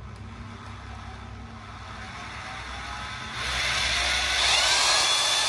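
Makita HR2601F corded rotary hammer running with no load in plain drilling mode, its motor speed rising under the variable-speed trigger. It runs louder at full speed from about three seconds in.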